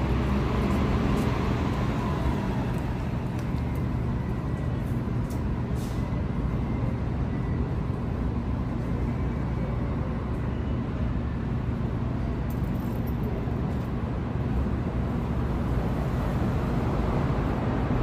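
Steady low rumble of city traffic and general outdoor urban noise, even throughout with no single event standing out.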